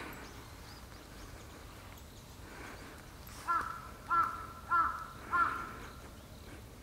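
A bird calling four times in quick succession, about half a second apart: short crow-like caws.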